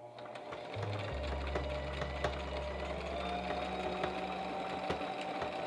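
Brother XL2600i electric sewing machine stitching a hem through fabric at slow pedal speed: a steady motor whine with rapid needle ticking. It builds up over the first second and picks up a little speed about halfway through.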